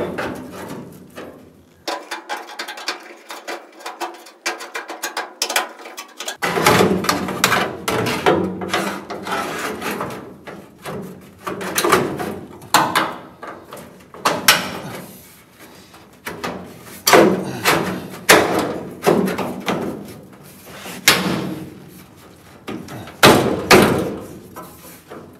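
Sheet-metal replacement lower hinge pillar panel knocking and clanking against the VW Beetle's steel body as it is pushed and worked into place for a test fit. A run of quick small rattles comes first, then irregular sharp metallic knocks.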